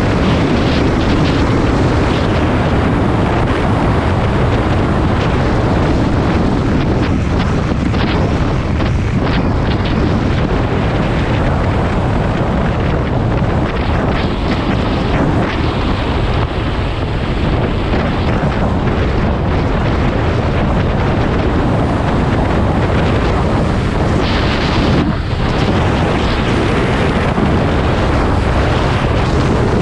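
Wind buffeting the microphone of a motorcycle on the move, with the bike's engine running steadily underneath.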